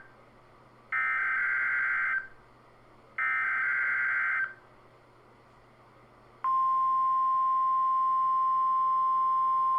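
NOAA Weather Radio weekly test signals: two bursts of SAME digital header tones, each a little over a second long with a pause between, then about six and a half seconds in the steady 1050 Hz warning alarm tone starts and holds.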